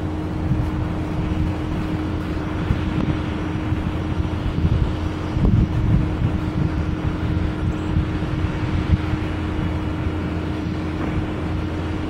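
Wind buffeting the microphone outdoors, an uneven low rumble, with a faint steady hum underneath; no siren voice or tone yet.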